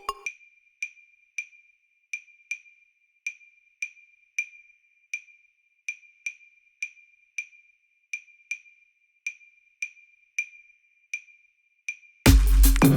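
Background electronic music in a sparse break: a lone wood-block-like tick repeating steadily, a little under two a second, then the full track with heavy bass and drums comes back in near the end.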